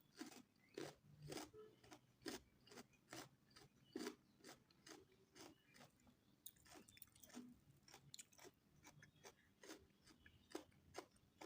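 Faint close-up chewing of mutton biryani with raw onion and green chillies, a run of short wet crunches about two a second.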